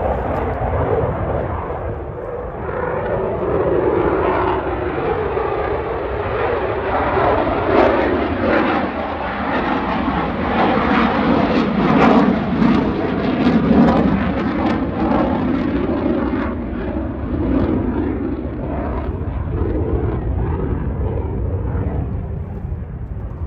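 An airplane flying past at an airshow: engine noise that swells to a peak about halfway through and then fades away.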